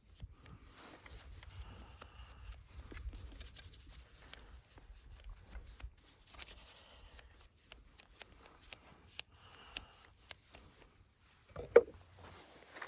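Close small scraping and clicking handling sounds in quick irregular succession, with one sharper knock near the end.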